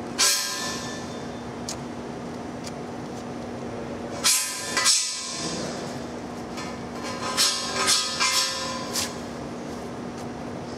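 Paint scraper scraping the black adhesive coating off a steel pipe, in short sharp strokes with a metallic ring: one at the start, two about four seconds in, then a quick run of four or five near the end. A steady hum runs underneath.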